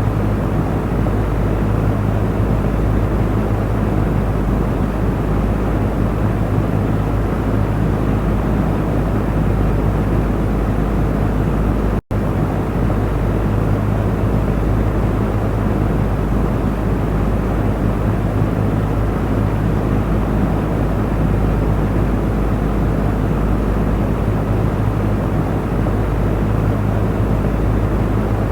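Electric fan running steadily: an even rush of air from the blades over a low motor hum. The sound cuts out for an instant about twelve seconds in, then carries on unchanged.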